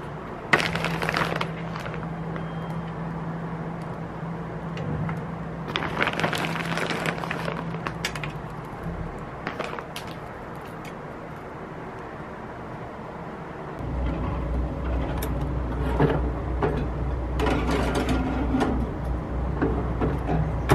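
Hands working a spoon of filling into bread rolls on a metal baking tray and scattering shredded cheese over them: a few short bursts of rustling and scraping over a steady low hum. The hum drops lower after about fourteen seconds.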